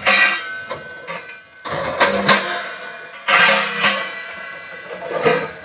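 Stacked stainless-steel chairs and metal frames clanging against each other as they are unloaded and set down, about four clattering hits, each leaving a metallic ring.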